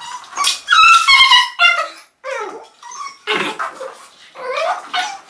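A puppy yelping and whimpering in a string of short high-pitched squeals while its mother dog pins it down on its back to discipline it.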